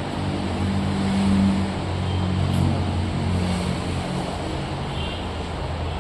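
A low mechanical hum over a steady rushing noise, a little louder between one and two seconds in.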